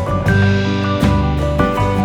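Background music: instrumental tune with held notes over a bass line, guitar-like plucked strings.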